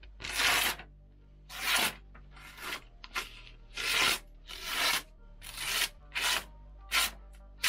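About a dozen short rasping scrapes at uneven intervals, each lasting less than half a second. They come closer together in the second half.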